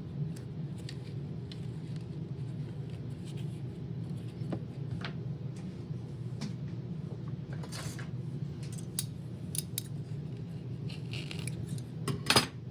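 Scattered small clicks, snips and scrapes of hands working on a dismantled Roomba robot vacuum and pulling out debris, with a louder clatter near the end. A steady low hum runs underneath.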